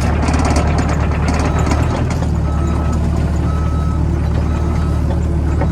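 Heavy vehicle's diesel-like engine running steadily with a reversing alarm beeping about once a second from about halfway through: the machine is backing up.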